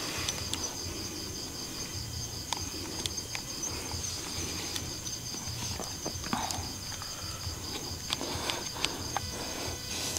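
Night chorus of crickets: a steady, finely pulsing high trill. Scattered light clicks and rustles run through it.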